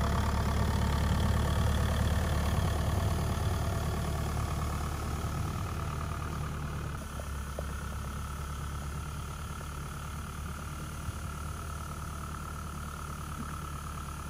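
Ford 1920 compact tractor's three-cylinder diesel engine running steadily while towing a brush over turf. It is loud and close at first, then quieter and more distant after about seven seconds.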